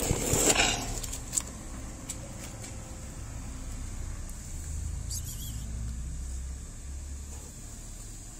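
Low rumble of road traffic that swells and fades as a vehicle passes about halfway through, with a short rustle and a few clicks at the start.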